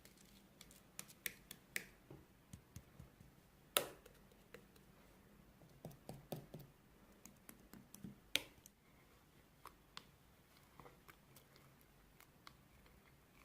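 Faint, irregular small clicks and taps, with two sharper clicks about four seconds in and again about eight seconds in.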